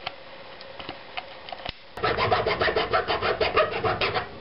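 A hand file rasping in quick repeated strokes on the cut end of a perforated steel boot-clamp band held in a bench vise, starting about halfway in. Before that, only a few faint clicks.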